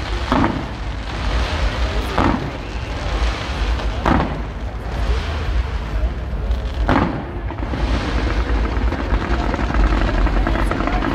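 Aerial fireworks shells bursting: four sharp booms about two seconds apart in the first seven seconds, over a steady low rumble.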